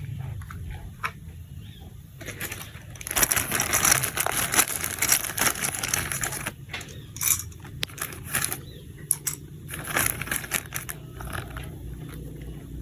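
Plastic toy packaging and parts being handled, with crinkling, tearing and irregular clicks from about two seconds in until near the end.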